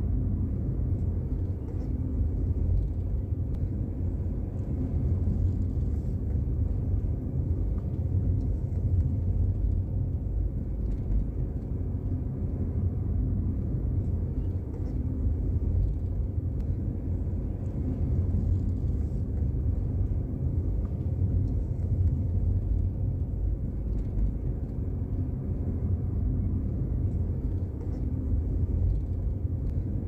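Car driving along, a steady low rumble of engine and tyres on the road surface.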